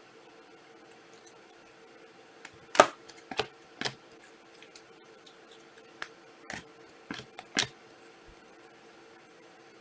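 Trading cards being handled during a pack break: short sharp clicks and rustles of card stock, starting about two and a half seconds in and coming in a loose run of seven or eight, over a faint steady hum.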